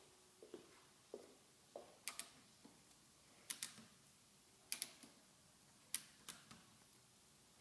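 Faint, irregular sharp clicks and light taps, about a dozen over several seconds, several coming in quick pairs.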